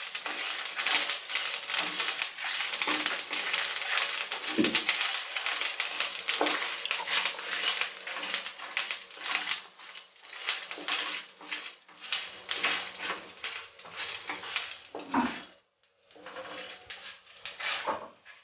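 Whole spices dry-roasting in a non-stick wok, stirred and scraped with a wooden spatula: a dry rattling and scraping of seeds and spatula on the pan. It is continuous at first and becomes more broken up in the second half, with a brief stop near the end.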